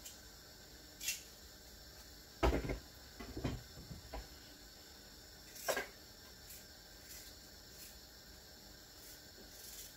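Knocks and clatters of things being handled on a kitchen worktop: a cluster of thuds about two and a half seconds in, a few lighter knocks over the next second and a half, and a sharp click near six seconds.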